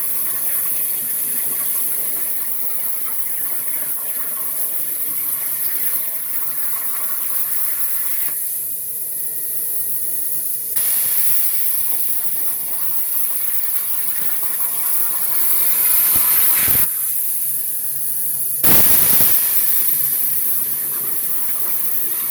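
CNC plasma cutter torch hissing steadily as it cuts cold rolled steel plate. The hiss stops twice for about two seconds, about a third of the way in and again near three-quarters, then starts again abruptly, slightly louder.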